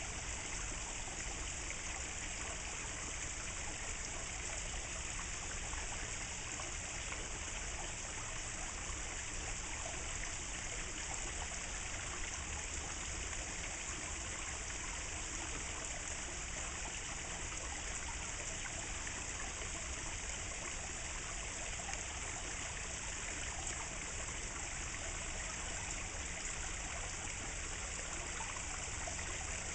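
Thin fountain jet pouring steadily into a pond: an unbroken trickle and splash of falling water.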